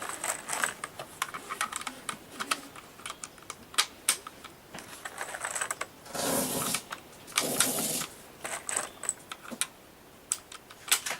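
Cartridges of Federal .223 ammunition being pressed one by one into an AR-15 magazine: a series of irregular sharp clicks of metal on metal. Two longer rustling noises come about two thirds of the way through.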